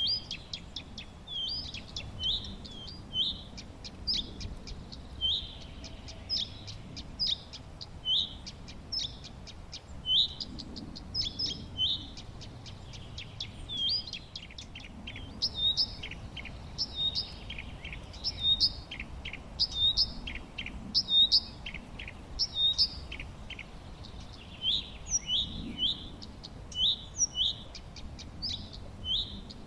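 Songbirds chirping: a steady run of short, high chirps, roughly one or two a second, mixed with quick clicking notes.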